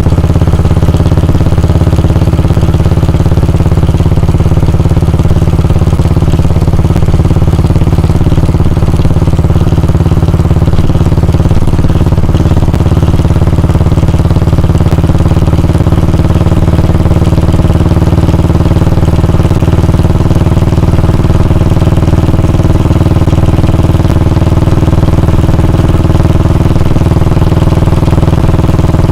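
Royal Enfield Bullet 350's air-cooled 349 cc single-cylinder engine idling steadily, its exhaust giving the even Bullet thump.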